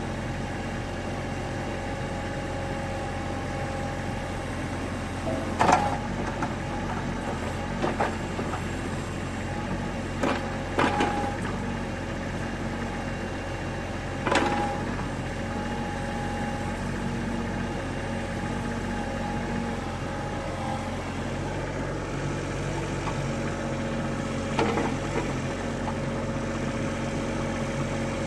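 Cat 301.7CR compact excavator's diesel engine running steadily, with a handful of short sharp clanks scattered through.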